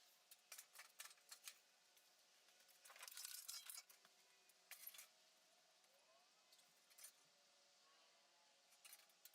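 Near silence, with scattered faint clicks and a brief rustling, scraping noise about three seconds in.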